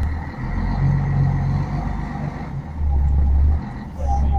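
Scania N113DRB bus's rear-mounted 11-litre six-cylinder diesel heard from inside the passenger saloon as the bus moves. Its deep rumble swells and eases three times.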